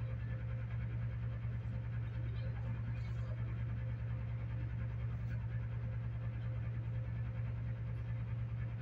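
A steady low hum with no change in pitch or level, with a few faint small clicks now and then.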